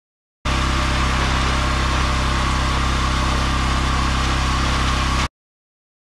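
Engine of a steam or pressure cleaning machine running steadily, with a broad hiss of the spray jet over it; it starts about half a second in and cuts off abruptly near the end.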